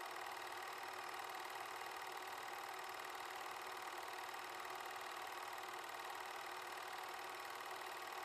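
8mm film projector running steadily: a fast, even mechanical clatter of the film transport with the whir of its motor.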